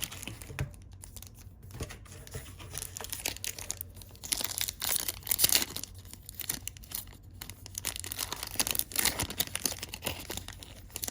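A trading-card pack wrapper being torn open and crinkled: a run of irregular ripping and rustling, loudest about five seconds in.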